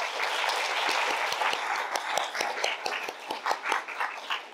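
Audience applauding in a lecture room: many hands clapping together, thinning out near the end.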